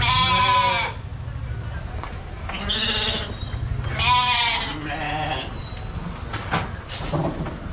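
Bannur cross sheep bleating: three loud wavering bleats within the first five seconds, the first right at the start, then a fainter one. A few short clicks follow near the end.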